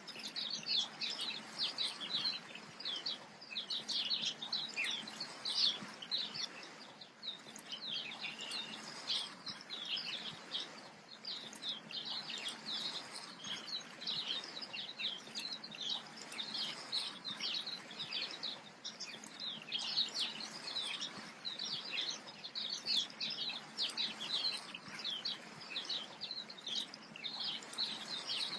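Many small birds chirping all at once, a dense unbroken chorus of short high chirps over a faint hiss.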